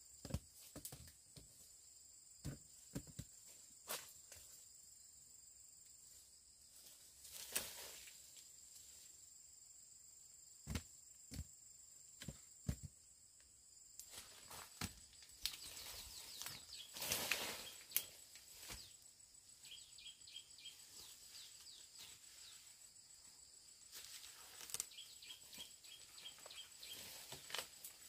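Faint scattered knocks and rustles, with a louder stretch of rustling around the middle, over a thin, steady high insect drone.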